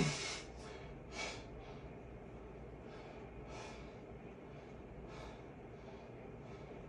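A lifter's short voiced grunt as he drives up out of a heavy barbell squat, then a sharp breath about a second later and fainter breaths in and out as he braces between reps.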